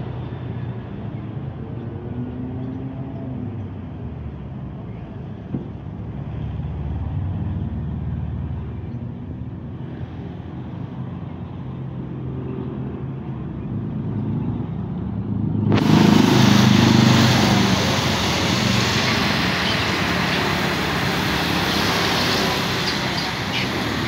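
Road traffic on a wet road: car and motorbike engines passing, with a hiss of tyres on wet asphalt. The hiss suddenly turns louder and brighter about two-thirds of the way in.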